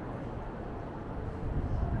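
Wind buffeting the microphone in low, uneven gusts, over the steady noise of city street traffic.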